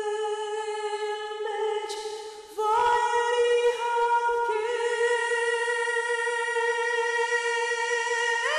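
Unaccompanied solo singing: a single high voice holding long, steady notes, with a brief break about two and a half seconds in before it moves to a new, higher note.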